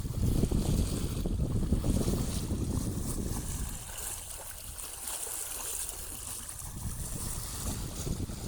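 Wind buffeting the microphone over the rush of water along the hull of a sailboat moving under sail, with no engine running. The buffeting is heaviest for the first three and a half seconds, then eases.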